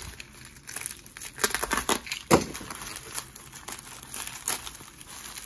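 Plastic wrapping crinkling and crackling as hands pull open a wrapped jewelry pouch, in irregular handling noises with one sharper crackle a little past two seconds in.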